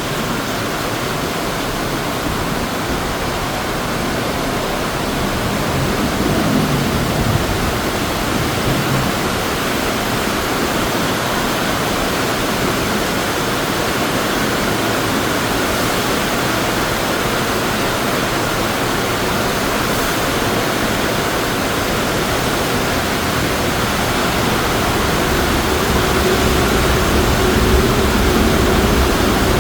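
Heavy monsoon rain pouring down, a steady dense hiss of the downpour. A low rumble swells underneath around six seconds in and again near the end.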